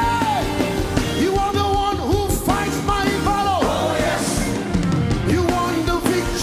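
Live worship band playing loud, upbeat music with a driving drum beat, and voices singing over it.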